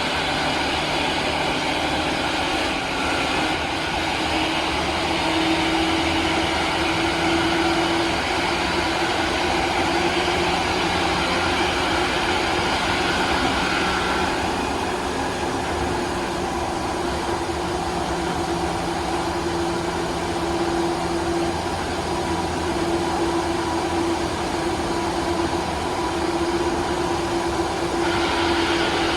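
Running noise of a Tobu 9000 series armature-chopper electric train car (MoHa 9203) under way, with a loud abnormal jet-like whine that drowns out the chopper sound. A steady tone holds throughout, while the brighter hiss fades about halfway through and comes back near the end.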